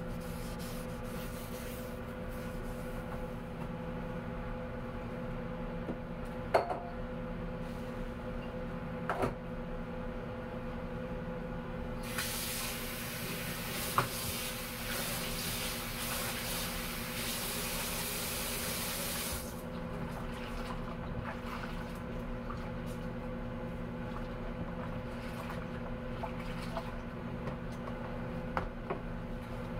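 Hand dishwashing at a kitchen sink: a few sharp clinks of dishes in soapy water, and the faucet running for about seven seconds in the middle. A steady low hum runs underneath.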